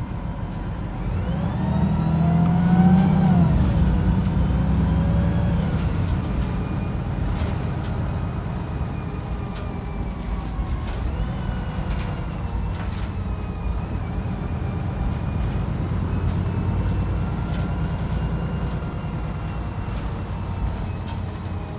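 Cabin of a Wright Pulsar 2 single-deck bus under way. The engine and driveline whine rise as the bus accelerates, peak about three seconds in, then fall away at a gear change. Steady running follows, with further smaller rises in pitch and scattered rattles and clicks from the bodywork.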